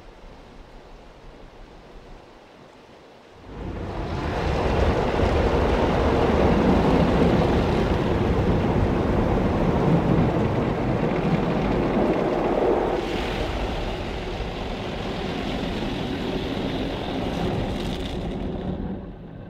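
Tammermatic T700 rollover car wash's rotating brushes and water spray working over the car, heard from inside the cabin as a loud, even rushing wash. It starts suddenly about three and a half seconds in and drops away near the end.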